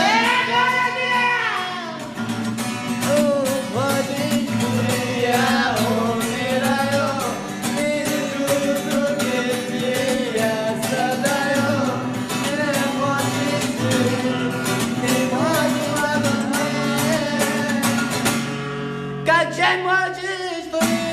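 A song: a singing voice over guitar accompaniment.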